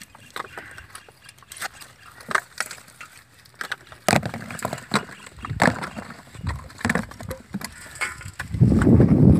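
Dry coconut shell halves clacking and knocking as they are handled and sorted by hand, in irregular short clicks. Near the end a much louder, dense low noise sets in.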